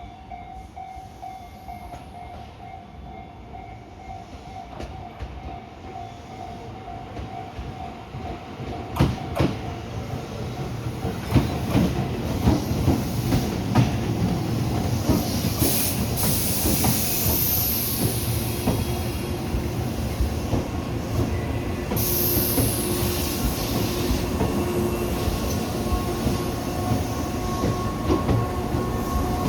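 Tobu 8000-series electric train set 8111F running, growing steadily louder over the first dozen seconds with a run of sharp wheel clacks over rail joints, then a steady loud running noise with a faint whine.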